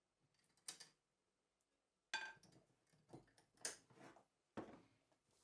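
A few faint clicks and knocks from a glass clip-top jar being handled and opened, its wire clasp and glass lid knocking, with one short ringing glass clink about two seconds in.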